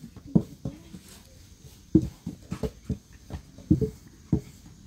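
Wooden rolling pins knocking and rolling over flatbread dough on metal trays: a dozen or so short, uneven dull knocks.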